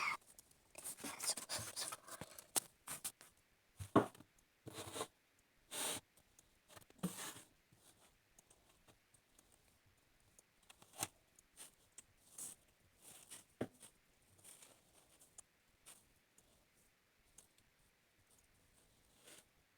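Slime being handled: short, irregular crackles and rustles, frequent for the first several seconds, then sparser and fainter.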